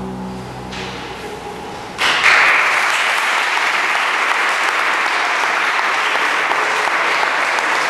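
The last chord of an Iberian pipe organ dies away in a reverberant church, and about two seconds in an audience starts applauding, steady and even.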